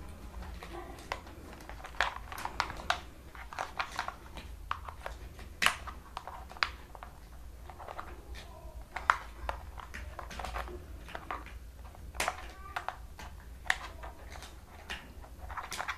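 Small screwdriver clicking and scraping against the plastic back of a toy RC car's remote control while the battery-cover screw is undone: irregular sharp light clicks and ticks, a few at a time.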